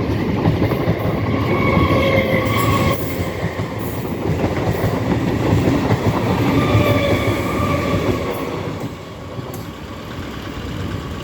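An EMU local train passes, its wheels clattering over the rail joints with a steady rumble that eases off about nine seconds in.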